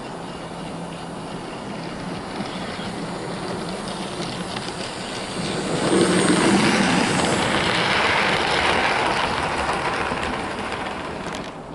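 OO gauge model tank locomotive running along the track with its coaches: a steady motor whir and wheel clatter that grows louder as the train passes close about six seconds in, then fades near the end.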